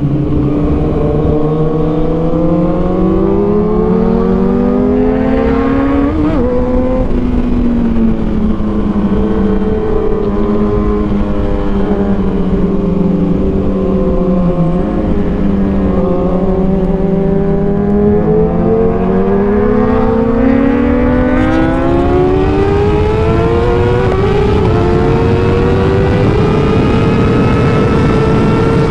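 Kawasaki ZX-6R 636 inline-four engine with an Arrow exhaust, under way and pulling through the revs. Its pitch rises, drops sharply about six seconds in as a gear change, holds lower through the middle, then climbs steadily and high over the last ten seconds.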